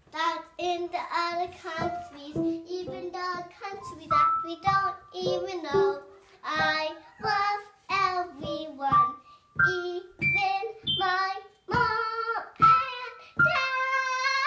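A young girl singing a song in a string of short sung phrases, ending on one long held note near the end.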